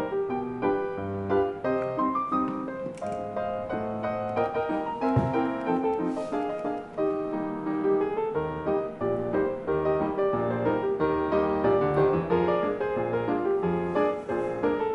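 Piano music playing a continuous run of notes.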